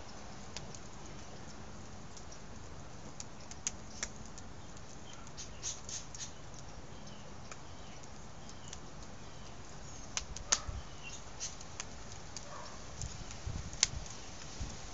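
Wood fire burning in a metal fire pit, crackling with irregular sharp pops and snaps, a few louder ones near the middle and near the end.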